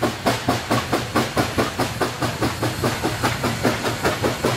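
Steam locomotive exhaust chuffing in an even rhythm, about five beats a second, over a steady low rumble.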